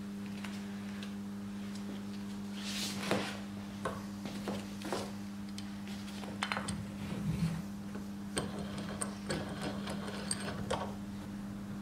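Wooden knocks as timber frame sections are fitted together, then clicks and taps as a steel screw clamp with plywood pads is set on the joint and screwed tight, over a steady low hum. The loudest knock comes about three seconds in.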